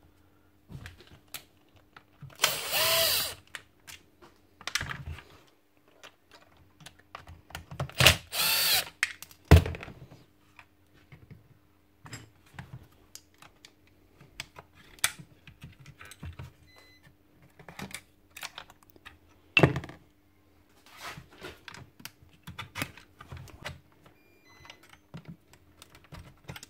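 Hand tools clicking and knocking on the metal parts of a Bosch GSH 11 E demolition hammer as it is taken apart, over a faint steady hum. Two loud bursts of noise, each about a second long, come near the start and about eight seconds in, followed by a heavier knock.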